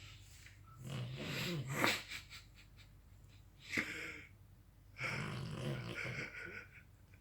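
Dog snoring loudly in its sleep. Three snoring breaths: a fluttering one about a second in, a short one near the middle, and a longer one in the second half.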